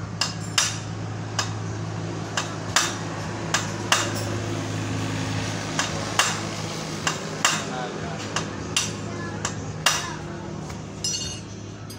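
Irregular sharp metallic clicks and clinks of a motorcycle clutch's steel plates, springs and clutch basket being pried apart with a screwdriver and handled, with a short rattle near the end. A steady low hum runs underneath.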